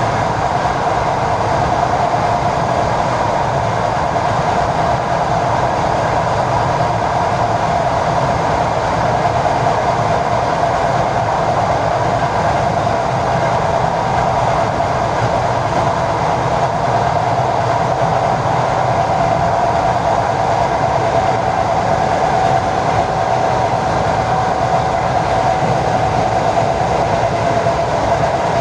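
ED4M electric multiple unit running along the line, heard from aboard: a steady rumble of wheels on rails with a steady whine over it.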